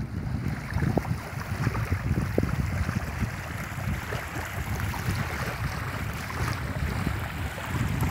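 Wind buffeting the microphone in uneven gusts, over small lake waves lapping onto a sandy, gravelly shore.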